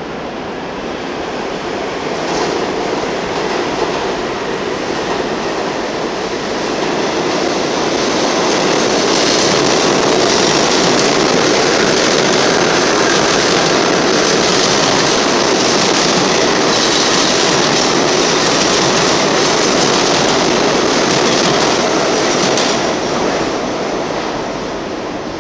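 New York City subway train running through an underground station: a loud, steady rumble and rattle of steel wheels on the rails. It swells about a third of the way in, holds, then eases off near the end.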